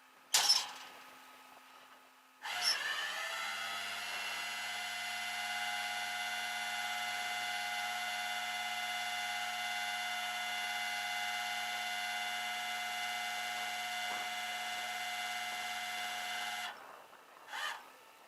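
A tow truck's winch drive spinning up with a rising whine, running steadily for about fourteen seconds while loading the car, then stopping; a sharp metallic clank comes just before it starts and another just after it stops.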